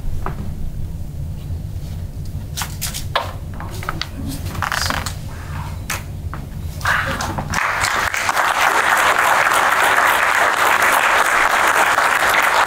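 Audience applause that breaks out about seven seconds in and holds steady and loud. Before it there is only a low hum and a few scattered clicks.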